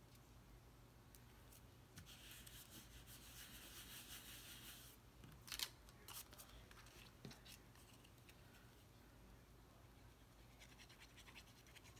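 Faint rustling and scraping of cardstock pieces being handled and fitted together, with one sharp tap about five and a half seconds in. Near the end, light scratching of a fine-tip glue bottle's nib on paper.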